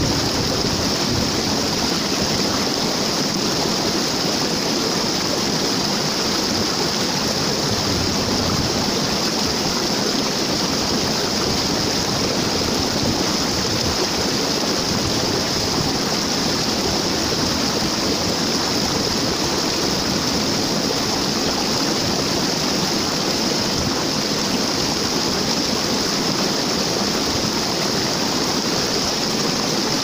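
Waterfall: a steady, unbroken rush of falling water, even in level throughout.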